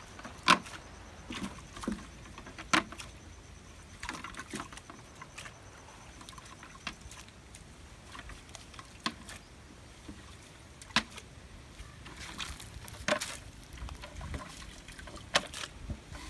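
Cast net being shaken out into a plastic crate of water: water dripping and splashing, with irregular sharp splashes and taps as freshly caught prawns flick about in the crate.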